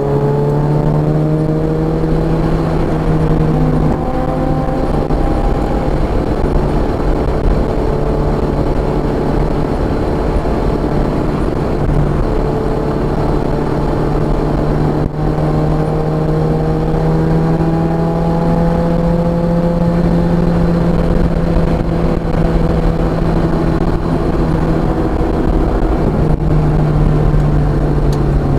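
Car engine running hard at track speed, its note rising and falling with throttle and gear changes, over steady road and wind noise.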